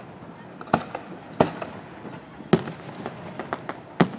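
Fireworks bursting overhead: four loud sharp bangs spread about a second apart, with smaller pops in between.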